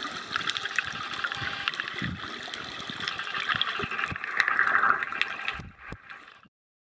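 Underwater sound: a steady rush of water and bubbling, scattered with short sharp clicks. It swells about four and a half seconds in, then fades and cuts off about six and a half seconds in.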